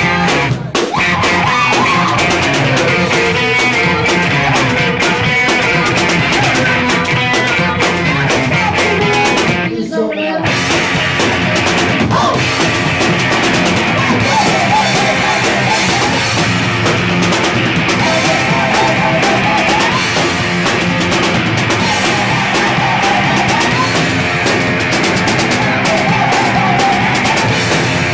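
Punk rock band playing live: distorted electric guitar, bass and drum kit, loud and continuous, with a momentary break about ten seconds in.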